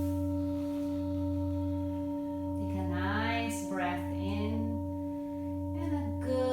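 Tibetan singing bowl (a circulation bowl) ringing on and on with a deep hum on its dominant note F and several higher overtones. The low hum swells and dips slowly.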